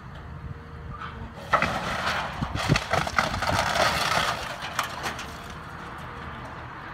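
A tracked excavator tearing into a house's upper wall and roof: about a second and a half in, a run of cracking, splintering crashes as siding and framing break, lasting about three seconds. Under it the excavator's engine runs steadily.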